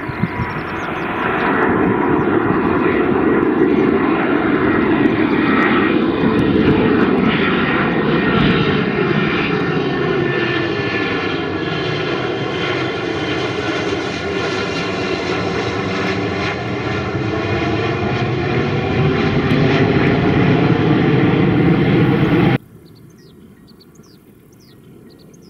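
Airbus A330-343 jet airliner with Rolls-Royce Trent 700 turbofans, climbing out at takeoff power directly overhead. It makes a loud, steady rushing engine noise with a slow sweeping, phasing quality as it passes. The sound cuts off suddenly about 22 seconds in, leaving only faint background.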